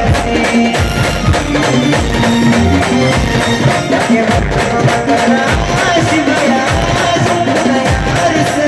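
A Maharashtrian village band playing folk dance music: held melody notes over a steady drum beat.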